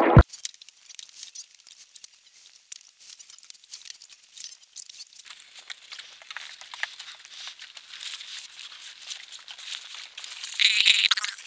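Faint, irregular crackling and rustling that grows a little louder about halfway through, with a brief louder rasp near the end.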